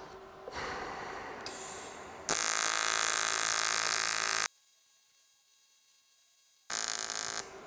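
TIG welding arc at about 80 amps on a fillet weld in aluminium. A softer hiss comes first, then the arc buzzes loudly and steadily for about two seconds. It cuts out suddenly and returns briefly near the end.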